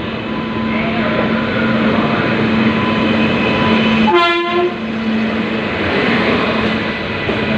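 Steady train noise with a low hum, broken about four seconds in by one short horn toot lasting about half a second.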